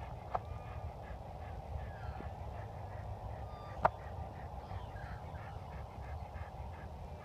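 Birds calling in a run of short, evenly repeated calls, with a few gliding calls, over a steady low rumble; a single sharp click about four seconds in.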